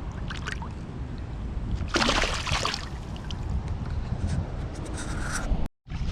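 Wind buffeting the microphone with water sloshing against a kayak hull, and a louder splash about two seconds in. The sound breaks off for a moment near the end.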